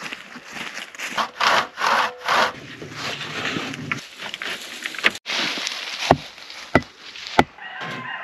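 Hand saw cutting wood in a run of quick back-and-forth strokes, then three sharp wooden knocks about two-thirds of a second apart near the end.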